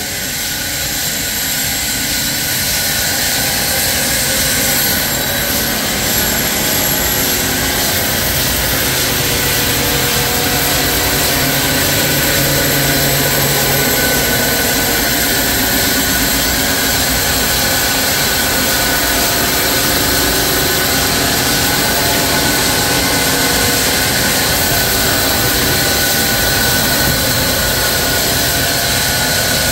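Sawmill saw running steadily: a loud, even noise with a strong high hiss that builds slightly over the first few seconds and then holds level.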